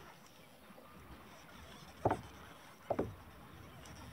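Low wash of water around a plastic sit-on-top kayak, with two sharp knocks against the hull a little under a second apart, about two seconds in.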